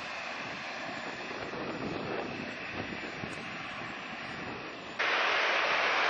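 Jet airliner engines, a steady rushing noise, which jumps suddenly much louder about five seconds in.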